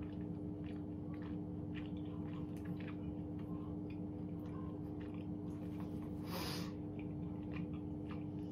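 A person chewing a mouthful of chewy Korean rice cakes (tteokbokki), with many small wet mouth clicks over a steady low hum. A short breath comes about six seconds in.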